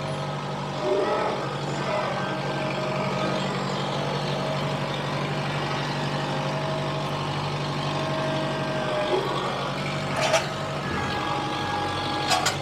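Kubota M6060 diesel tractor engine running steadily, with a thin whine above it. Two sharp knocks come near the end.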